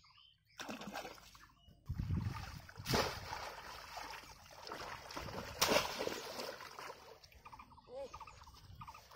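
Water splashing and sloshing as a bamboo polo fish trap is hauled up and slammed back down into shallow, weedy water. Two sharp, loud splashes come about three and six seconds in.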